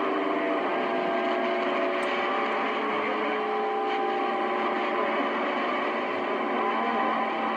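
Stryker CB radio receiving only a weak signal on the 11-meter band: a steady static hiss with several faint, steady whistling tones that come and go.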